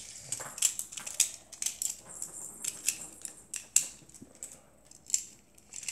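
Plastic Beyblade spinning top and its launcher being handled and fitted together in the hands: irregular small plastic clicks, taps and rattles.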